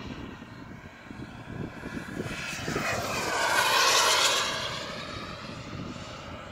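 Radio-controlled model jet flying past, its engine sound building to a peak about four seconds in and then fading away.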